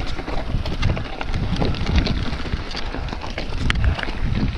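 Mountain bike descending a rocky trail: wind buffeting the microphone over a dense clatter of tyres rolling over loose stones and the bike rattling.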